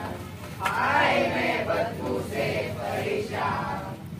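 A group of voices chanting in unison in several short phrases with brief breaks, the first and loudest starting under a second in.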